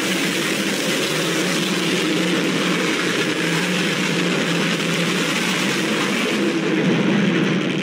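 Loud, harsh, distorted horror sound effect: a steady wash of static-like noise over a rough low drone.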